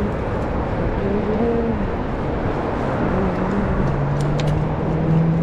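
Motor vehicle engine hum over a steady rush of traffic noise; a deeper engine tone comes in about three seconds in and grows a little louder.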